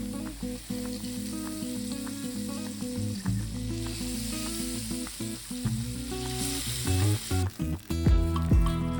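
Hot frying oil sizzling and bubbling as flour is tipped into it, louder for a few seconds in the middle and then cutting off suddenly. Background music with plucked notes plays underneath.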